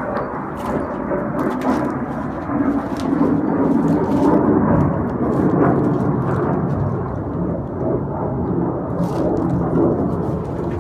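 F-18 fighter jet flying overhead: a loud, steady rumble that swells slightly in the middle.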